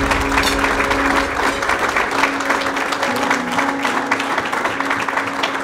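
Audience applauding, with background music holding a few steady tones underneath.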